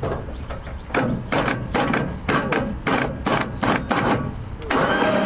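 A rapid series of sharp knocks or clacks, about four to five a second, starting about a second in and stopping shortly before the end.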